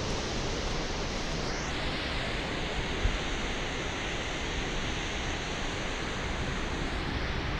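Steady outdoor wash of wind and sea surf, with wind buffeting the phone's microphone as a low, uneven rumble. A single brief low bump about three seconds in.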